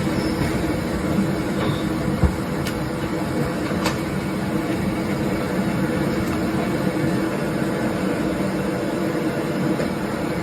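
Steady roar of fast-flowing floodwater, with a few faint clicks or knocks over it.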